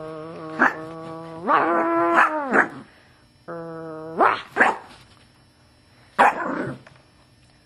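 Yorkshire terrier growling in long, steady stretches, broken by a run of sharp, loud barks.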